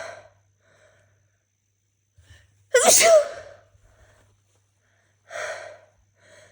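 One loud, voiced sneeze about three seconds in, after a short catching breath, followed by a sharp in-breath near the end.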